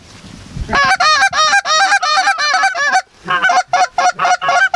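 Goose honks and clucks in a fast, overlapping run starting about a second in, thinning to shorter, spaced clucks over the last couple of seconds.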